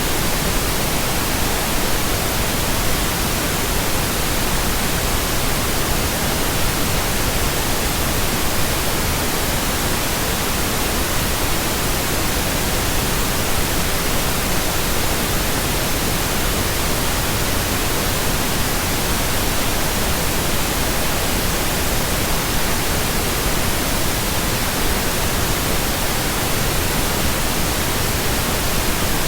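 Steady pink noise: an even, unbroken hiss across all pitches that neither rises, falls nor pauses.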